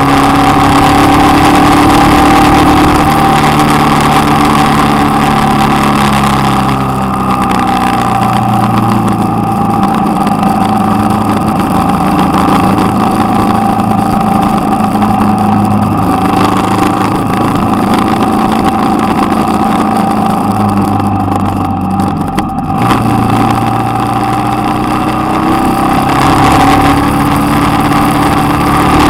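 Motorcycle engine running on the move, its note falling in steps over the first several seconds, holding steady, then climbing again near the end, with steady wind rush over the bike-mounted microphone.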